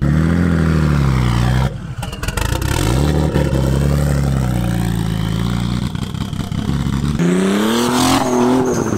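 BMW-based ute's engine accelerating on a test drive, its note climbing and dropping as it pulls and eases off. The sound changes abruptly about two seconds and seven seconds in.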